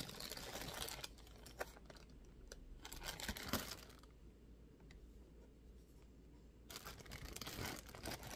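Clear plastic wrapping crinkling and tearing as it is pulled off a microphone, in faint crackly bursts with a pause of a few seconds past the middle.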